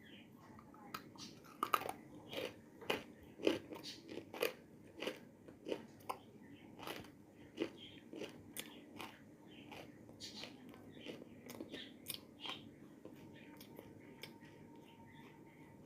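Dry edible clay chunks crunching as they are bitten and chewed: a quick run of sharp cracks that thins out and fades near the end.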